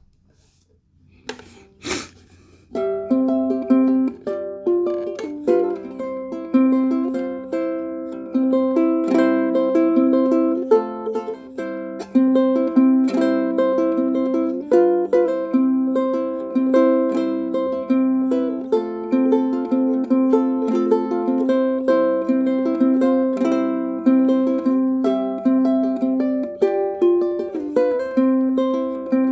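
Instrumental music of plucked strings playing a steady, repeating tune. It begins about three seconds in, after a couple of short clicks.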